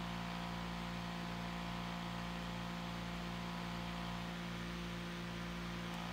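Steady electrical mains hum: a low, even buzz that does not change.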